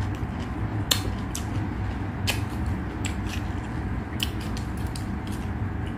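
Close-up chewing of crisp raw cucumber, with irregular sharp wet crunches, the loudest about a second in, over a steady low hum.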